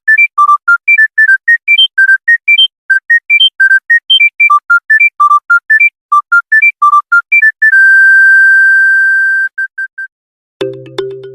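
Monophonic mobile phone ringtone: a fast melody of short electronic beeps, about four a second, ending about eight seconds in on one long held beep and two short ones. Shortly before the end a fuller polyphonic ringtone starts.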